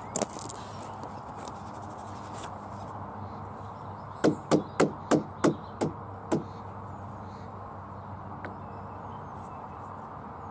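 Seven quick knocks on a timber frame, about three a second, a little past the middle, over a steady background hiss.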